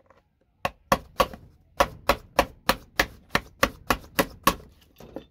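A run of sharp, evenly spaced knocks, about three a second, about a dozen in all, as the connector blocks of a network patch panel are struck to knock them off the board.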